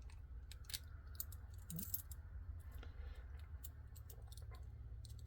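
Scattered light metallic clicks and taps, about a dozen at uneven intervals, as a re-pinned padlock cylinder is handled and worked back into the lock body.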